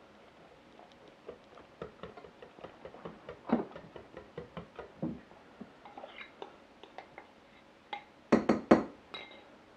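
Wire whisk clicking and scraping against a metal saucepan as a batter is whisked, in quick, irregular strokes. Near the end come four louder knocks in quick succession as mashed potato is knocked out of a bowl into the pan.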